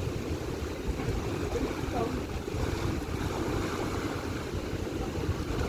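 Steady, uneven rumbling noise, mostly low in pitch, typical of wind buffeting the microphone aboard a boat, with faint voices in the background.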